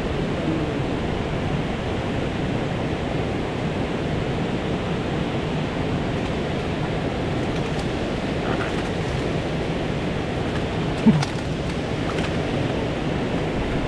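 Steady rush of a fast-flowing river, with one brief knock about eleven seconds in.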